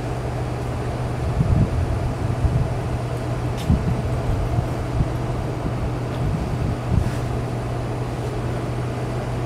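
Steady low hum and rumble of distant vehicle engines, with irregular low thumps coming and going and a faint short tick a few seconds in.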